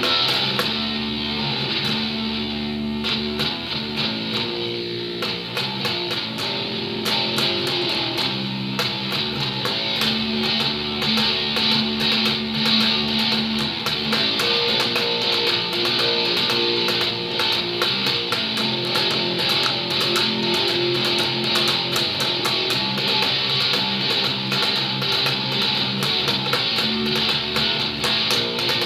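Electric bass guitar played fingerstyle, held low notes changing every second or two.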